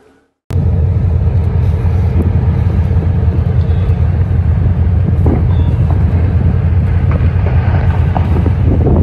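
Loud steady low rumble from a boat, starting abruptly about half a second in, with a few faint crackles in the second half.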